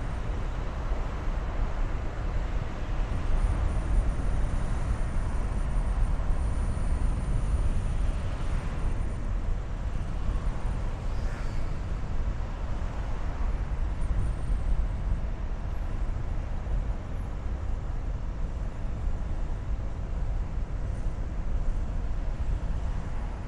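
Car driving along a city street: steady low rumble of engine and tyre noise from the moving car.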